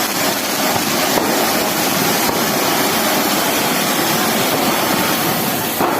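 Firework burning with a loud, steady hissing rush.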